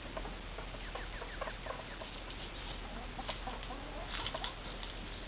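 Chickens clucking, with short calls scattered throughout, some sliding down in pitch.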